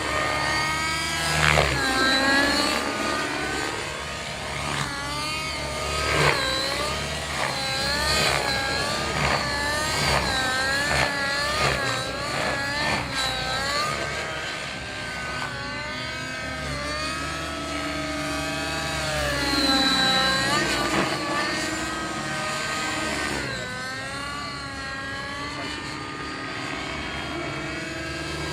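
Radio-controlled helicopter flying 3D aerobatics. Its rotor and motor whine keeps swooping up and down in pitch as it is thrown about under load, fastest in a run of quick rises and falls through the middle.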